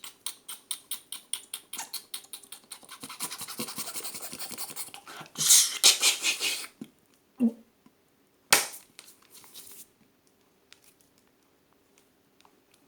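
Mouth sounds made by a person: a run of rapid tongue clicks, about six a second, that thickens into a fast rattle, then a loud hissing burst about five and a half seconds in, followed by a couple of single sharp clicks.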